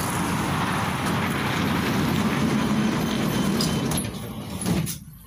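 Steady running noise heard from inside a KTM-5M3 tram, which drops away sharply near the end.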